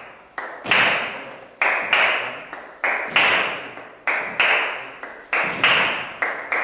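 Small hand cymbals struck in a slow, steady rhythm, about one strong stroke a second, each stroke ringing and fading away. Lighter strokes often lead into heavier ones.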